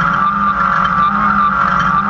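Off-road race truck's engine running hard at high revs, heard from inside the cab, a loud steady drone whose pitch wavers slightly up and down.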